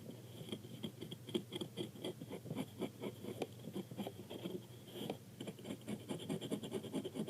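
Quick, irregular scratching strokes of drawing on paper, adding details to a homemade paper squishy.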